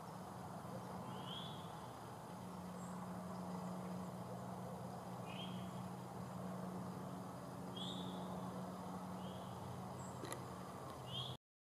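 Quiet woodland ambience under a steady low hum, with a bird giving five short chirps a couple of seconds apart. A single faint click comes near the end, and then the sound cuts off abruptly.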